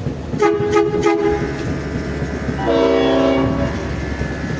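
Horns on railroad motorcars sounding over the low running rumble of the cars. A two-note blast of about a second comes first. A little later comes a fuller, multi-note horn chord of about a second.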